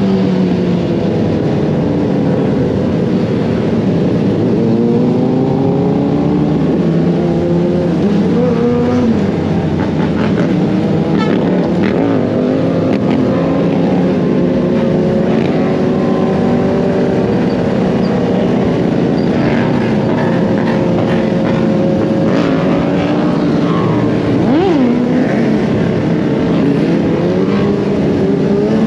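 Several motorcycle engines running together, their pitches rising and falling as the riders throttle and shift. One bike gives a sharp, quick rev near the end.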